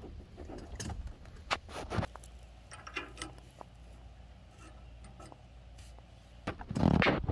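Light metallic clinks and knocks from small ride-on railway cars and their couplers, with a louder clank and rumble near the end as the cars come together and couple.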